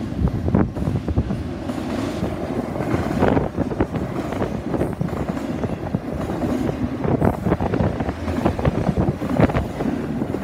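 Double-stack intermodal container cars of a freight train rolling past: a steady rumble of steel wheels on rail, broken by frequent irregular clanks and knocks.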